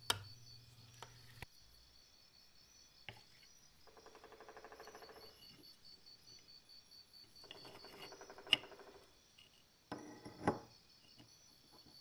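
Metal hand tools working a corroded Zippo lighter case: sharp metallic clicks, two stretches of fine rasping scraping, and a louder knock near the end. A faint steady high pulsing tone runs underneath.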